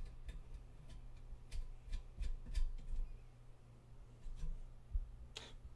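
A few light, scattered clicks and taps of hands working on a small metal lathe assembly with its fasteners, over a steady low hum. The sharpest click comes near the end.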